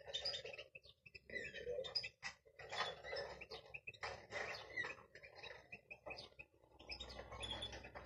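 Young greenfinch x canary mule chicks calling from the nest, a run of short, high, scratchy calls repeated every half second to a second.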